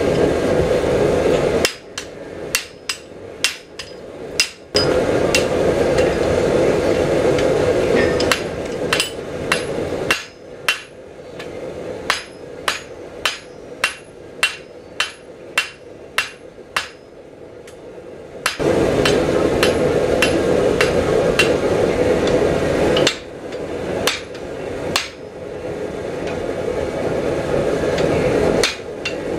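Hand hammer blows on hot steel on a steel anvil: runs of sharp, briefly ringing strikes, about one or two a second. They alternate with stretches of a steady rushing noise.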